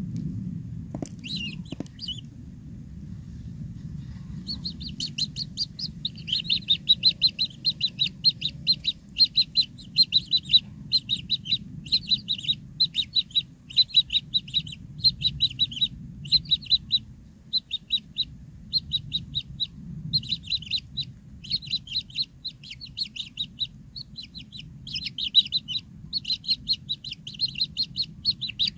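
Kingfisher nestlings in a burrow nest giving begging calls: quick trains of thin, high chirps, about two a second, starting a few seconds in and keeping on, over a low steady background rumble.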